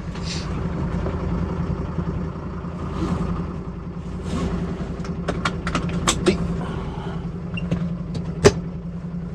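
H500 light truck's engine idling just after start-up. It has a steady running note with a fast da-da-da clatter, which the owner puts down to the air compressor charging the air brakes rather than a misfiring cylinder. Several sharp clicks come in the middle, and a louder knock near the end.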